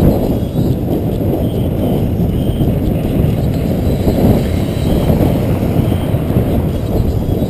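Wind buffeting a bicycle-mounted camera's microphone as the bike rolls downhill at speed: a loud, steady low rumble.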